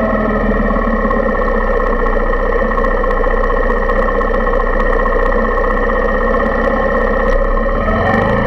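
Suzuki Intruder 125's single-cylinder engine idling steadily, heard through a handlebar-mounted camera that picks up the bike's vibration as a constant buzzing drone. A wavering tone joins near the end.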